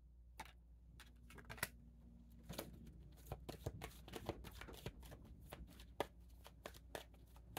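A deck of oracle cards being shuffled by hand: soft, scattered card clicks that become a dense, quick riffle about three seconds in.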